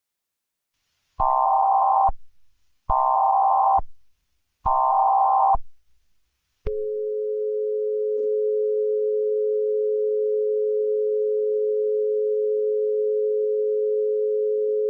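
Emergency Alert System-style alert opening: three blasts of digital header data noise, each about a second long, then a steady two-tone attention alarm held for about eight seconds. This signals that an emergency announcement is about to follow.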